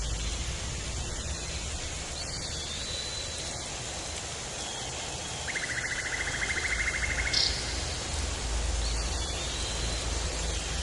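Tropical forest ambience: a steady hiss over a low rumble, with short high bird whistles a few times. A little past halfway, a rapid pulsing trill runs for under two seconds, followed by a brief high chirp.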